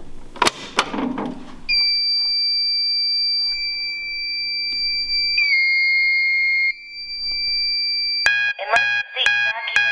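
Fire alarm sounding: a steady high electronic tone starts about two seconds in and steps slightly down in pitch partway through. Near the end a louder, rapidly pulsing sound with several tones cuts in.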